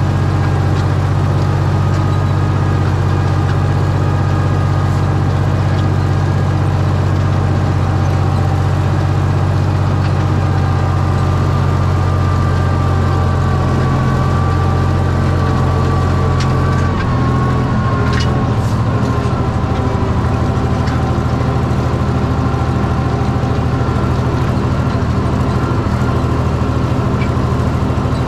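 Tractor engine running steadily, its note shifting slightly lower about two-thirds of the way through.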